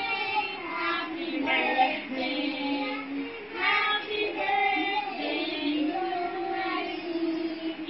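A high voice singing a slow song, holding long steady notes with a few quicker phrases in between.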